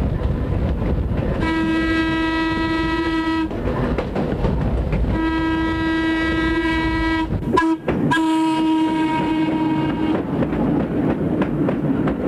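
Electric interurban car's horn sounding three long, steady single-tone blasts of about two seconds each, over the continuous rumble and clatter of the car running on the rails. A brief sharp dropout comes just before the third blast.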